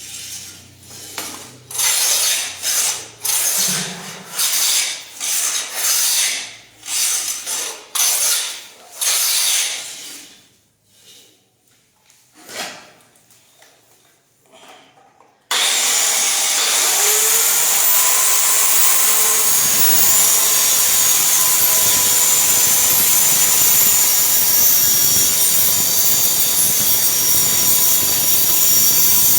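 Wood being worked by hand in quick back-and-forth strokes, about two a second, for roughly ten seconds, with a few scattered strokes after. About halfway through, a woodworking power tool starts abruptly and runs steadily and loudly with a constant whine.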